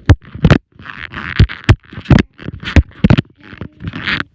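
Close handling noise: a quick run of knocks and clatters mixed with rustling scrapes, as things are moved about right by the microphone.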